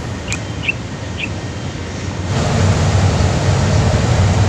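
Steady low rumble of wind and distant city traffic, louder from about two seconds in, with a few faint high chirps in the first second and a half.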